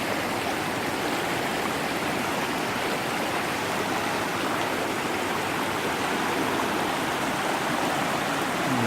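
Stream water rushing and babbling steadily over rocks, a constant even splashing.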